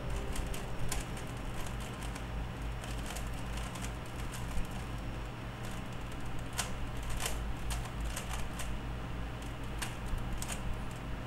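A 3x3x3 Rubik's cube being turned by hand: irregular clicks and clacks of the plastic layers, with a few sharper ones, over a low steady hum.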